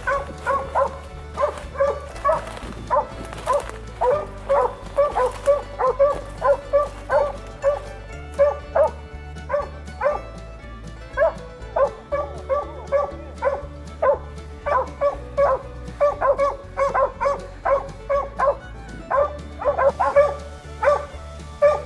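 Hunting dogs barking rapidly and without let-up, about two barks a second, over background music with a steady bass line.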